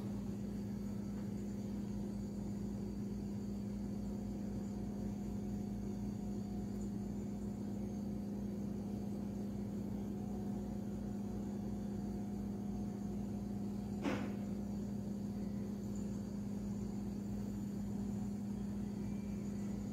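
Steady low machine hum at an even level, with one short tap about fourteen seconds in.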